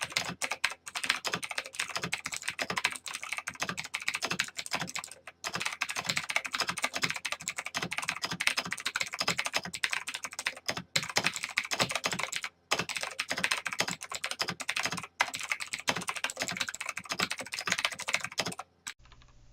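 Fast, continuous typing on a mechanical keyboard: a dense stream of key clacks with a few brief pauses, stopping shortly before the end.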